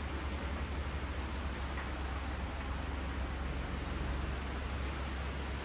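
Steady outdoor noise, an even hiss over a low rumble, with a few faint, short high squeaks about three and a half seconds in.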